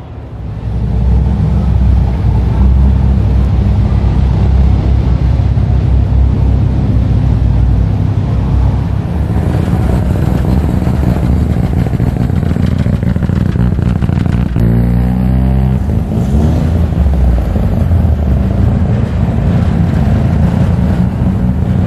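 Car engine running with a loud, deep exhaust rumble that starts about half a second in, with a short rev rising in pitch about fifteen seconds in.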